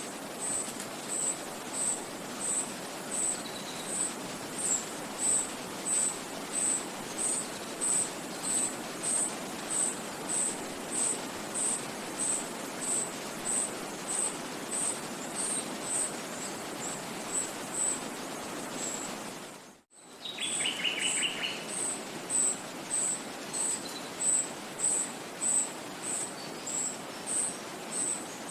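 Forest ambience: a steady hiss of wind and stream under a high, thin chirp repeating evenly about twice a second. The sound drops out for a moment about 20 s in, and a short bird trill follows just after.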